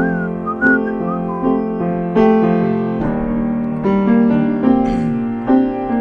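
Piano playing slow sustained chords in an instrumental break of a ballad, a new chord struck about every second, with a high gliding melody line over it in the first second and a half.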